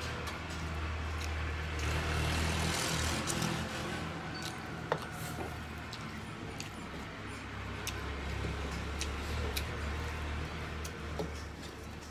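Fingers mixing rice and curry on steel plates, with scattered small sharp clicks against the metal, over a steady low engine-like rumble that is the loudest sound.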